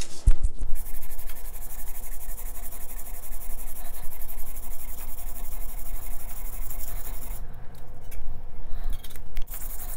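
Steel Bahco card scraper rubbed back and forth flat on a wet Trend diamond stone, a steady scratchy grinding as its faces are flattened to take off the old edge. The rubbing eases off for a couple of seconds near the end, then picks up again.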